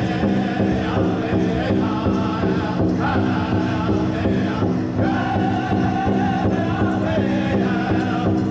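Powwow drum group: several men singing a chant in unison while beating together on one large hide-headed powwow drum with padded beaters, in a steady beat.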